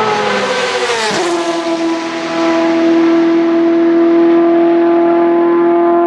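Ferrari 458 GT2 race car's naturally aspirated 4.5-litre V8 running hard on track. The engine note drops in pitch about a second in, then holds one steady, high note.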